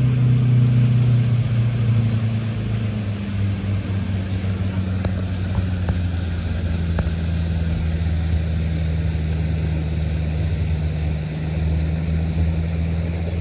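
Boat engine running steadily with a low, even drone, easing slightly lower in pitch over the first few seconds.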